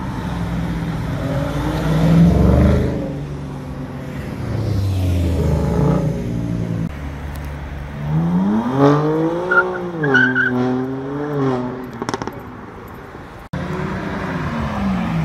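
Several cars accelerating hard past the roadside, one after another. The engine note climbs and drops through gear changes, and the strongest run rises sharply about eight seconds in and holds before falling away. It cuts suddenly to another passing car near the end.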